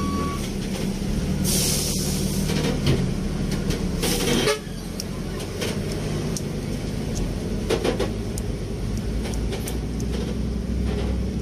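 A vehicle engine running steadily at idle, with a short high beep at the very start and two brief bursts of hiss, about one and a half and four seconds in.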